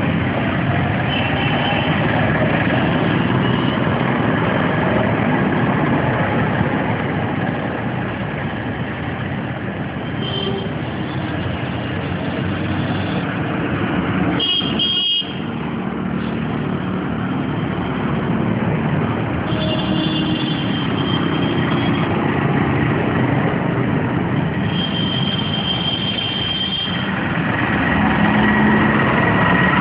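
Busy road traffic: a steady din of vehicle engines, with horns tooting in several short spells.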